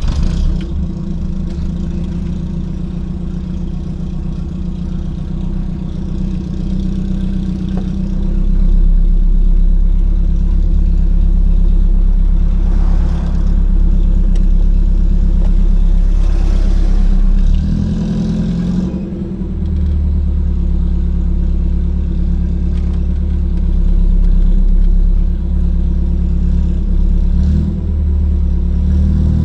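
Volvo 242GL engine and exhaust through a new muffler while driving: a steady low drone that grows louder about eight seconds in, dips briefly a little past halfway, then picks up again.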